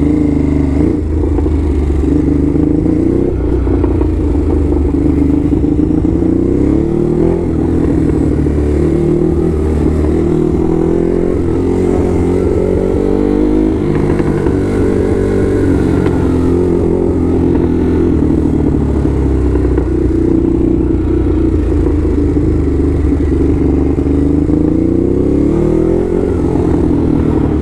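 Ducati Hypermotard's L-twin engine running under way, its note rising and falling with the throttle several times.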